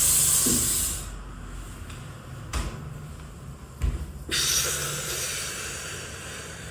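Two dull thumps a little over a second apart, typical of chiropractic thrusts on a treatment table, between two loud hissing sounds: a short one at the start and a longer one that fades away.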